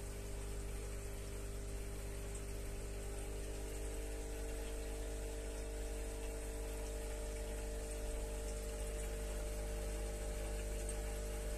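Aquarium pump or filter running with a steady hum and a soft wash of moving water.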